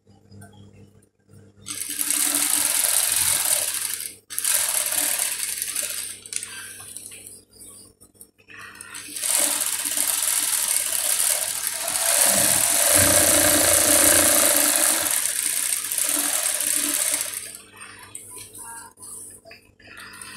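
Industrial single-needle sewing machine running in stretches of stitching: a run starting about two seconds in, a brief stop near four seconds, another run to about eight seconds, then a long run from about nine to seventeen seconds before it stops.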